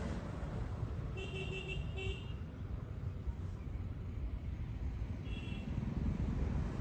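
Vehicle horns tooting in short blasts, two close together about a second in and one more after about five seconds, over a steady low rumble.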